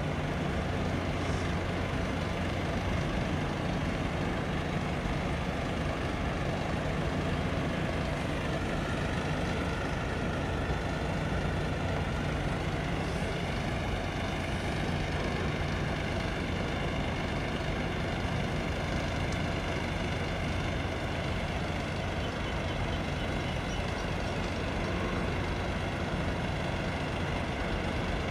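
Steady low hum of heavy diesel engines, unbroken throughout, with a faint higher tone joining about nine seconds in.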